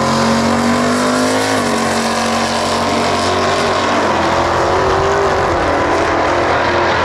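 Drag cars launching at full throttle, engines wide open. The engine note climbs in pitch, drops suddenly about a second and a half in, then climbs again as the car runs down the strip.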